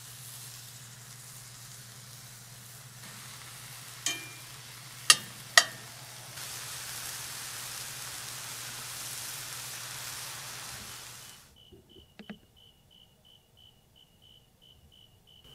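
Ground meat sizzling in a cast-iron skillet over a propane burner, with a low steady hum and three sharp clicks a little past the middle. It cuts off near the end to faint insect chirps repeating about three times a second.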